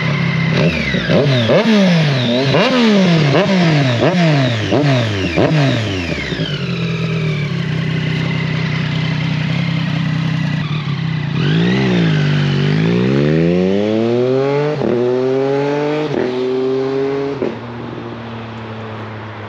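Triumph Street Triple 765 RS three-cylinder engine, revved hard in quick blips about eight times, then pulling up through the gears with three quick upshifts on the quickshifter before dropping away near the end.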